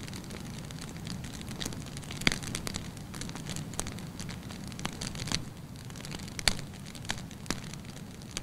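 Log campfire burning, crackling with irregular sharp pops, the loudest about two seconds in.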